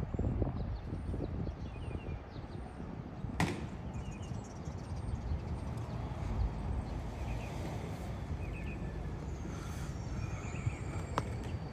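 Outdoor background ambience: a steady low rumble with faint, scattered small bird chirps and a sharp click a few seconds in.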